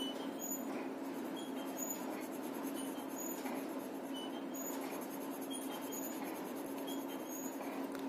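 Graphite pencil scratching across paper in repeated shading strokes, over a steady low hum, with faint short high-pitched chirps scattered throughout.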